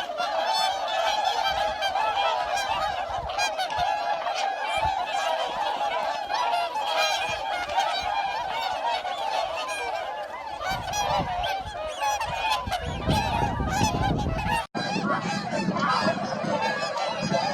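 Geese honking and gabbling loudly and continuously, many calls overlapping. A low rumble joins in over a few seconds past the middle, and the sound breaks off for an instant about fifteen seconds in before the honking carries on.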